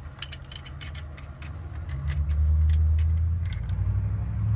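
Light metallic clicks of a key and wafer lock cylinder being handled. About two seconds in, a low steady mechanical hum rises and drowns them out.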